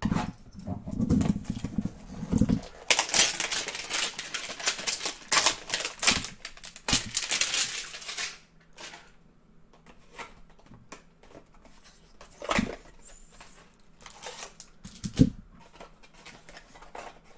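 A cardboard trading-card hanger box being handled and torn open by hand: a few low bumps against the table, then about five seconds of crackling, ripping cardboard and wrapper, then scattered taps and clicks as the box is turned over.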